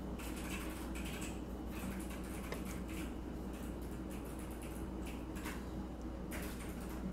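Faint, scattered light taps and clicks over a steady low hum.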